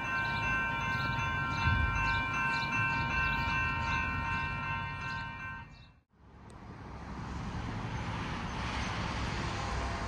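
Railroad crossing warning bell ringing, about three strikes a second, while the crossing gates are down. It fades out about six seconds in, and a steady rushing noise follows.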